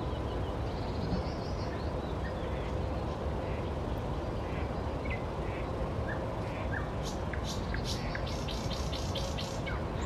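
Songbirds singing in spring woodland over a steady low background rumble: a high trill about a second in, scattered short calls, and in the last few seconds a rapid series of loud repeated notes, about four a second.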